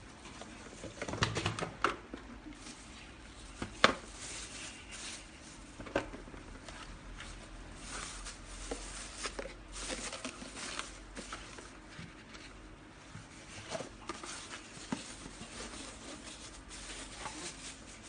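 Handling noise of a plastic dog poop-bag dispenser: irregular clicks and knocks as its case is opened and handled, with plastic bag rustling in between. The sharpest click comes about four seconds in.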